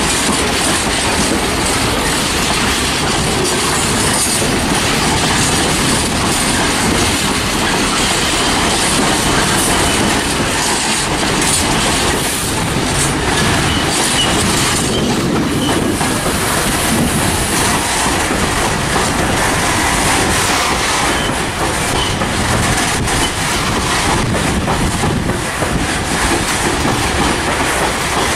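Freight train wagons rolling past at close range, steady and loud, with the wheels clattering over the rail joints in a continuous clickety-clack.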